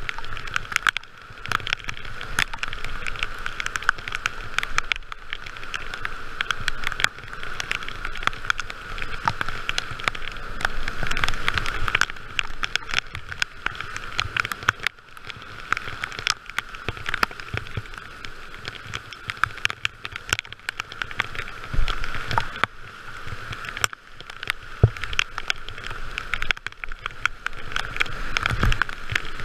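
Whitewater rapid rushing and churning around a kayak, with dense clicks and taps of spray splashing onto the camera. A few heavier low thuds come in the last third as the boat drops through big waves.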